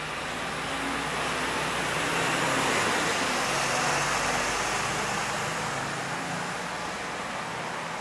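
A road vehicle driving past on a city street: its tyre and engine noise swells to a peak about halfway through, then fades away.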